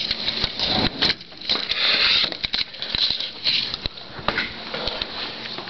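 Irregular close rustling and shuffling with many scattered clicks and light knocks, in a small room.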